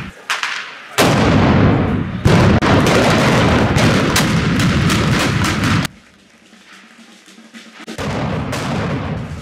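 Volley of black-powder arquebus (trabuco) shots: a blast at the very start, then a dense run of many overlapping loud shots from about a second in until about six seconds, which stops suddenly, and another burst of shots near the end.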